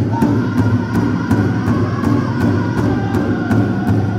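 Pow-wow drum group: several drummers striking a large shared drum in a steady beat, about three strokes a second, with voices singing over it.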